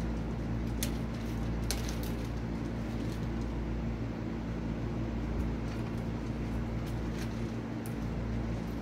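Steady low background hum with a few light clicks and taps of small laptop parts being handled, about a second in, twice around two seconds, and once near the end.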